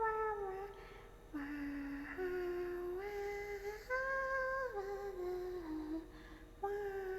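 A woman's voice humming wordless, drawn-out notes that step up and down in pitch, pausing briefly about a second in and again near the end.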